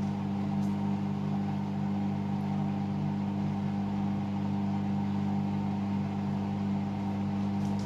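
Hoover All In One washing machine's drain pump running with a steady, even hum while it pumps out the wash water ahead of the first rinse.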